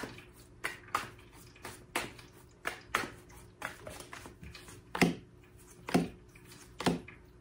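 Tarot deck being shuffled by hand, the cards giving light snaps about once a second. Then three cards are laid down on a wooden table one after another, about a second apart, each a sharper slap and the loudest sounds here.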